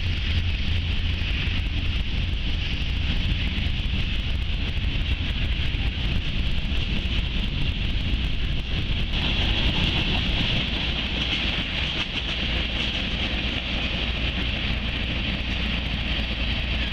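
A Norfolk Southern local freight train's mixed cars rolling past on the rails, making a steady, unbroken running noise.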